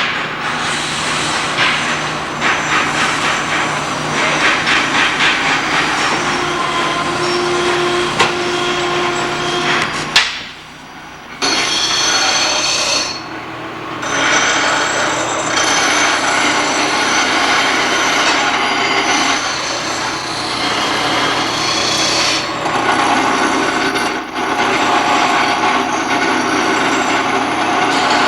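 Loud workshop noise from power tools and metalwork, a dense mix with steady tones running under it. It breaks off briefly twice near the middle.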